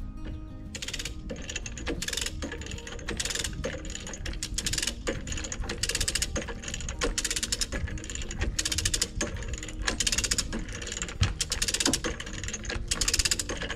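Hand-cranked come-along ratchet clicking as its handle is pumped, taking up slack in the chain and strap. It goes in short runs of rapid clicks, one with each stroke, every half second or so.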